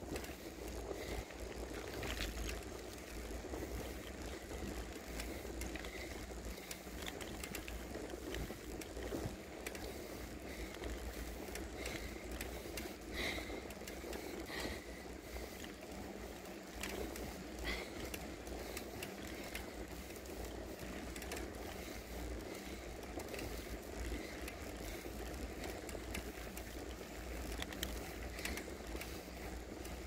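Bicycle rolling fast downhill on a paved road: a steady rush of wind and tyre noise, with scattered light ticks and rattles from the bike.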